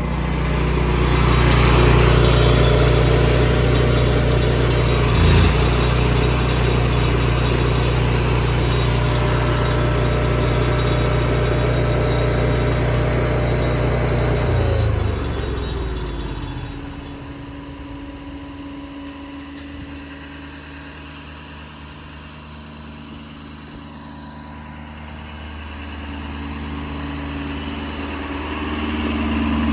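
Engine of a Miller Trailblazer 302 Air Pack welder/generator/air compressor running steadily at speed, with a single knock about five seconds in. About halfway through, its pitch falls and the sound drops to a much quieter steady running, growing louder again near the end.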